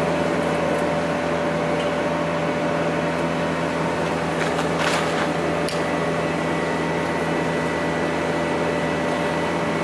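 Steady hum of running machinery: an even drone with several constant tones held over it, unchanged throughout. A brief faint rustle about five seconds in.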